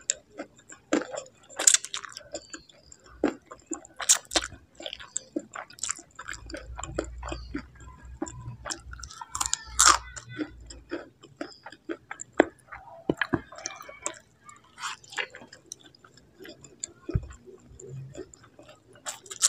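Close-up chewing of spicy instant noodles eaten with chopsticks: irregular wet smacks and clicks of the mouth.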